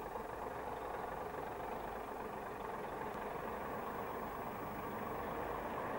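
Articulated lorry rolling slowly, its engine running steadily.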